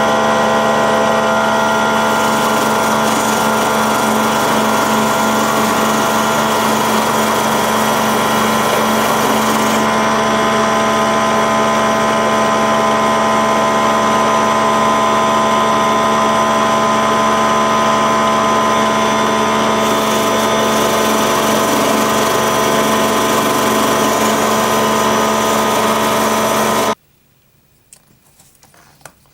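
Small electric power tool motor running steadily with a constant whine, then cutting off abruptly near the end.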